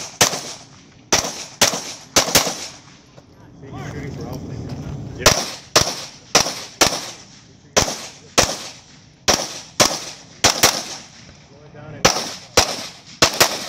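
Handgun fire on a competition stage: about eighteen sharp pistol shots, mostly in quick pairs a half second apart, each with a short echo. The shots stop for about three seconds a few seconds in, then resume in pairs.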